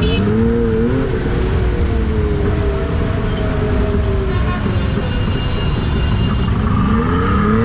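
Traffic noise in a stop-and-go jam: a steady low rumble of engines, with an engine revving up and settling right at the start and again near the end.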